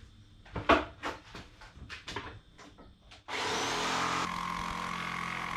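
A few handling knocks and clicks, then about three seconds in an electric power saw starts with a brief rising whine and runs steadily, cutting a plywood hull panel.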